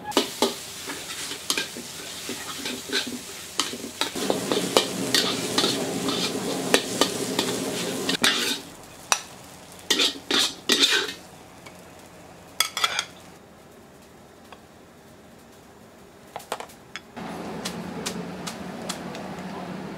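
Fried rice being stir-fried in a wok: a metal utensil scraping and clanking against the pan over a sizzle, in quick strokes for the first half, with a few more scrapes after a pause. Near the end a steady rushing starts from a big pot of noodle water at the boil.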